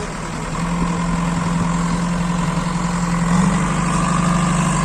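JCB 3DX backhoe loader's diesel engine running as the machine drives, its pitch and loudness stepping up about half a second in and again about three and a half seconds in as the throttle is opened.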